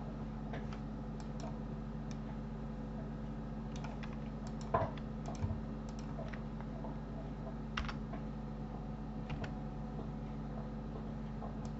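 Computer keyboard keys and mouse buttons clicking at irregular intervals as shortcuts are pressed, over a steady low hum.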